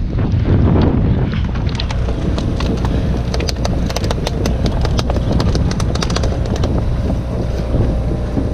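Skipjack tuna flapping its tail against the boat deck, a fast clatter of taps that dies down near the end. Under it, the steady low hum of the boat's engine and wind on the microphone.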